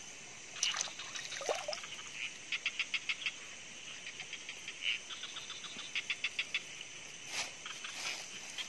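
Chorus of night-calling animals: repeated trains of quick, high chirping pulses, about five to eight in each train, over a steady high insect hum. There are a couple of soft knocks, one about a second in and one near the end.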